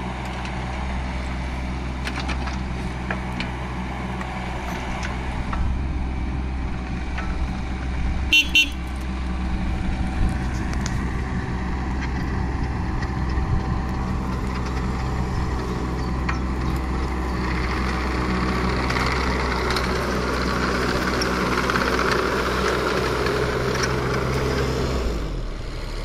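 JCB 16C-1 mini digger's diesel engine running steadily while the digger works a soil pile, with two brief high toots about eight seconds in. The engine note grows fuller in the later part as the hydraulics work under load, then changes abruptly near the end.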